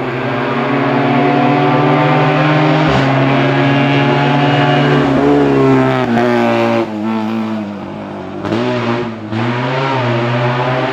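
Small Fiat 500 race car engine revving hard as the car climbs past. The engine note rises through the gears, with a gear change about three seconds in. It falls briefly twice in the second half as the driver lifts off, then holds steady at high revs.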